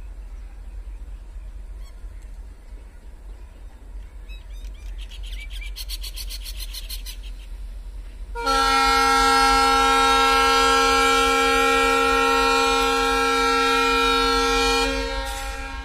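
Diesel locomotive air horn on WDM3A ALCo locomotives sounding one long blast of about six seconds, several notes together, over a low rumble, the signal of a train about to start from a halt at a signal. A brief rapid high chatter comes a few seconds before the horn.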